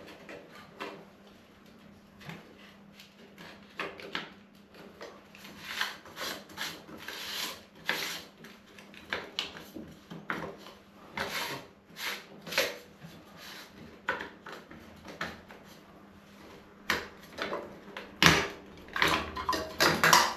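Plastic and metal parts of an old Mira shower valve cartridge being handled and taken apart: irregular clicks, taps and short scrapes. A louder knock comes near the end, followed by a quick cluster of clatters.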